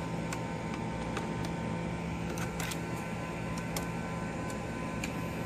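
Steady hum with a few faint, sharp clicks spread through it: small laptop parts and wires being handled and pried loose during disassembly.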